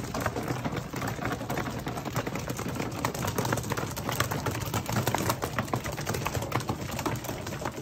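Racing pigeons pecking grain from a feeder: rapid, irregular clicking and tapping of beaks on seed and the feeder, over a steady low hum.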